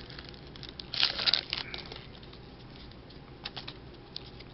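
Trading-card pack wrapper crinkling and tearing as the pack is opened, with a short burst of crinkling about a second in, then a few light ticks and rustles.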